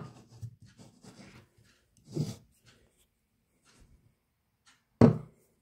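Handling noise of a paperboard ice cream pint with a plastic lid being turned in the hands: light rubbing and rustling, with two short louder bumps, one about two seconds in and one near the end.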